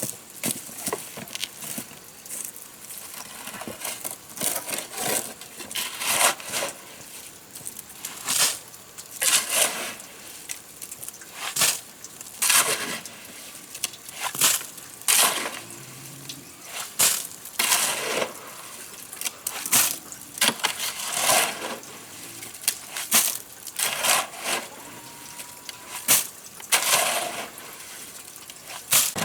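Repeated gritty scrapes and knocks of stone and earth being worked by hand, roughly one every second or so, as rock is dug and set for a stone embankment.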